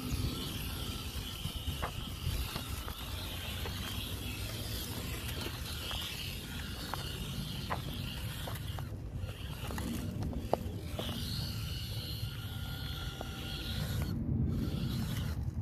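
Small electric motor and gears of a 1/18-scale Hobby Plus CR-18 RC crawler whining as it crawls over trail terrain, easing off briefly a couple of times, with scattered clicks of tires and chassis on rock and dirt.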